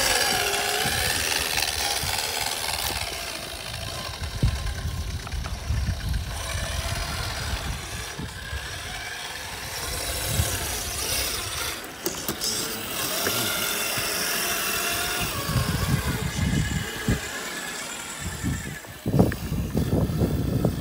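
Electric motors and gearboxes of radio-controlled scale crawler trucks whining as they crawl slowly over rocks, with tyres scraping on stone. A sharp knock comes about four seconds in, and a cluster of louder knocks near the end.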